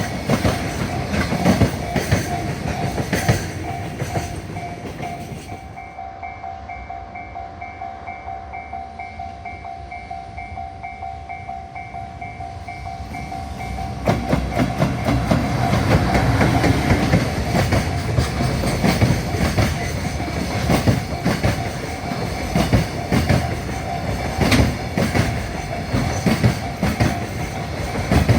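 Freight train passing a level crossing, its wheels clacking steadily over the rail joints while the crossing's warning bell rings on in a steady pulse. The train noise eases off about five seconds in and comes back loud around fourteen seconds.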